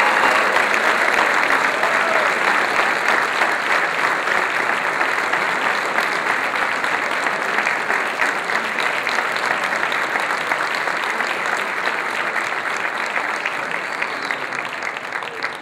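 Large audience applauding steadily, the clapping slowly dying away toward the end.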